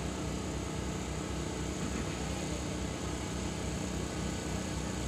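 A steady low mechanical hum over an even background noise, with no rise, fall or break.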